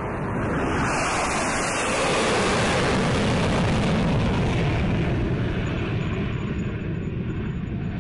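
Jet airliner flying past: a loud, steady rushing jet roar that swells in over the first second, holds, then eases off slightly toward the end.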